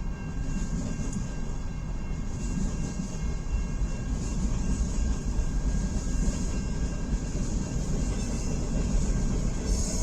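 Long CN mixed freight train rolling past: a steady rumble and clatter of freight cars' wheels on the rails, with a few faint high steady tones over it.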